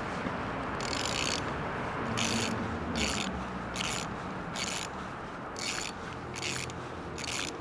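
Hand ratchet wrench being swung on a car's wheel hub, its pawl buzzing in a short rasping burst on each back-swing, about eight strokes at uneven intervals.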